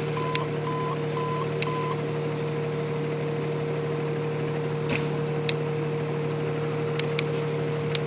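Fire engine's diesel idling with a steady hum, lights on, ready to roll. A run of short high beeps, about two a second, stops about two seconds in, and a few sharp clicks follow later.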